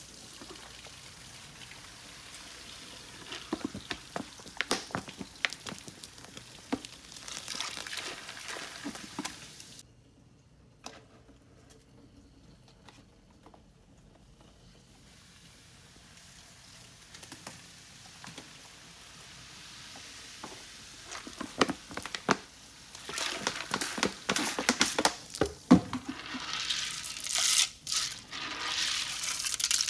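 Candy and drinks going into a toilet bowl of water: crinkling, pattering and pouring with splashes, in bursts. There is a near-quiet pause about ten seconds in, then a busier stretch of splashing and pouring that builds toward the end.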